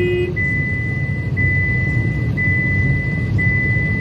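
Car engine and road noise heard from inside the cabin while driving, a steady low rumble. Over it a high electronic beep tone sounds continuously, broken briefly about once a second. A short horn toot comes right at the start.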